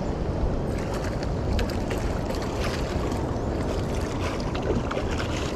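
Steady rush of river water with wind on the microphone, with scattered faint ticks.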